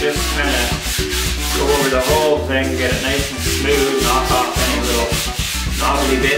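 Background music with guitar and bass, and a steady rhythmic rasping about four times a second.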